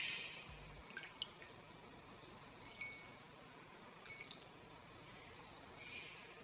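Liquid dripping and trickling from a blanched geoduck into a glass bowl, with a few faint wet clicks as fingers work the clam's skin.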